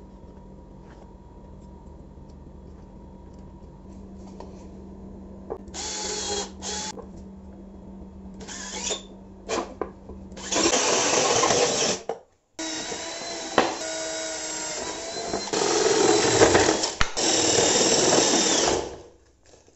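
Cordless drill spinning an adjustable circle cutter through plywood to cut speaker holes: a few short bursts, then longer runs of motor whine and cutting, shifting in pitch, with a brief stop partway. A faint steady hum comes before the drilling starts.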